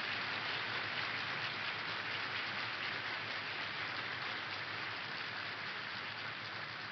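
A large assembly applauding: a dense, steady clatter of many hands clapping together, easing off slightly near the end.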